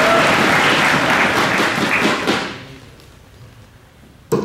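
Audience applause fading away over the first two and a half seconds. Near the end comes a single sharp thud as a steel-tip dart strikes the bristle dartboard.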